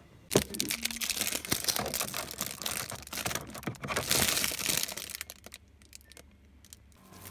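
Crinkly rustling and light clicking of eggs being handled and set into a refrigerator's plastic egg tray, starting with a sharp knock. It thins to a few scattered clicks near the end.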